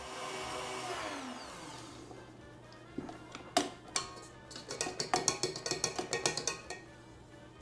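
Stand mixer whipping cream in a stainless steel bowl, its motor running and then winding down with a falling whine about a second in as it is switched off. From about three seconds in, a wire whisk clicks and taps against the metal bowl in a quick run of light knocks.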